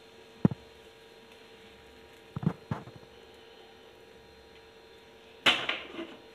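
Small non-stick appachatti (palappam pan) knocking against the gas stove's metal pan support as it is swirled: a single knock, then three quick knocks about two and a half seconds in. Near the end comes a louder metal clatter with some ringing as the pan is set back down on the burner.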